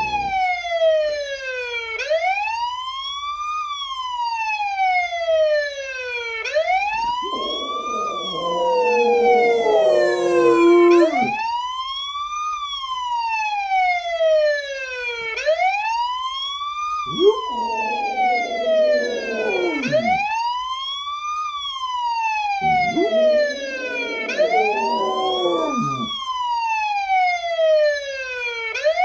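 A wailing emergency siren rises and falls slowly and evenly, about every four and a half seconds. A Rottweiler howls along with it three times, each howl lasting two to three seconds, its voice wavering below the siren's pitch.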